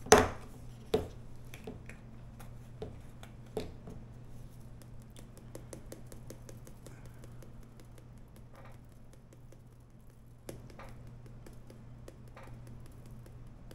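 Seasoning shaken from a small shaker bottle over raw chicken pieces in an air fryer basket: a long run of light, rapid ticks and taps. A sharp knock at the very start is the loudest sound, and a low steady hum runs underneath.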